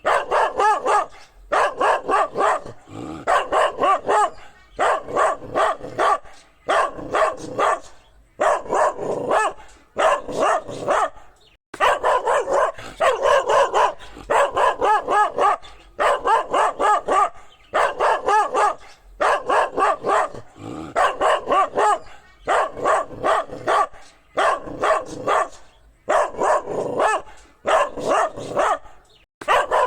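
Dog barking in quick runs of about four to six barks, with short pauses between runs, over and over.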